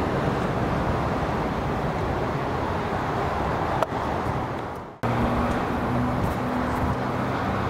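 Comeng electric suburban train running along the track, a steady rumble. A cut about five seconds in brings a steadier low hum.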